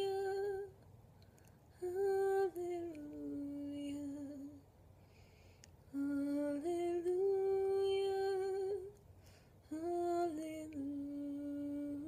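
A woman's unaccompanied voice singing long, wordless held notes that step up and down in pitch, in about four phrases with short breaks between them.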